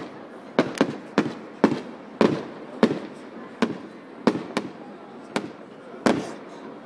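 Aerial fireworks shells bursting in a rapid, irregular series of sharp bangs, one or two a second, each followed by a brief trailing rumble.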